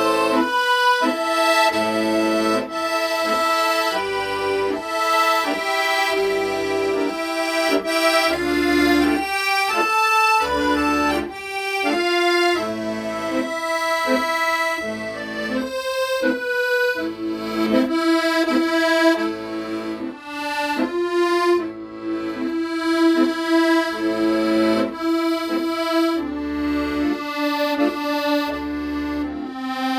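Accordion playing a song melody in held, reedy notes over a steady pulsing bass-and-chord accompaniment.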